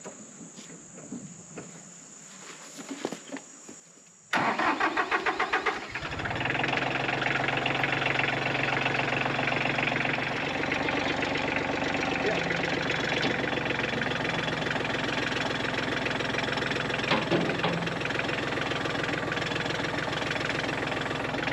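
Kubota loader tractor's diesel engine starting: about four seconds in, a short run of starter cranking strokes, then the engine catches and runs steadily. Crickets buzz steadily before it starts.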